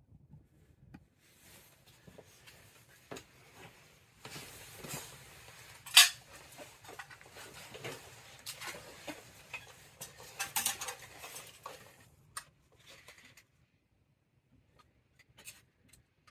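Small parts of an oil-boiler aquastat being handled and fitted back together: rustling with scattered light clicks of metal and plastic. There is one sharp click about six seconds in and a run of clicks about ten seconds in, then it goes almost quiet.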